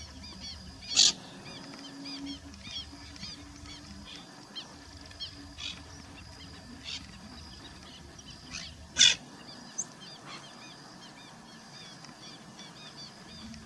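Peach-fronted parakeets calling: two loud short calls, about a second in and about nine seconds in, with a few weaker calls between them, over a continuous background of many faint quick chirps.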